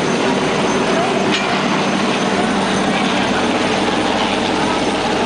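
Rescue helicopter running close by: a loud, steady rotor and engine din that does not change.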